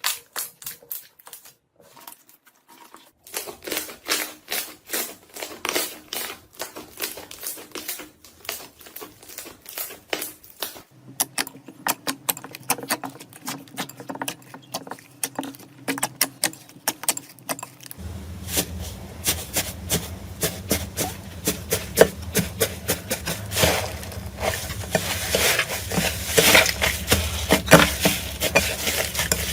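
Slime being squeezed and pressed by hand, making a dense run of small sticky clicks and pops. The clips change about 3, 11 and 18 seconds in, and the crackling grows louder and denser toward the end.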